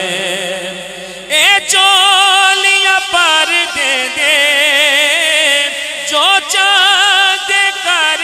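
A man singing a Punjabi devotional manqabat solo into a microphone, unaccompanied, in long wavering ornamented phrases. A held note fades over the first second, then a new phrase swoops up loudly about a second and a half in.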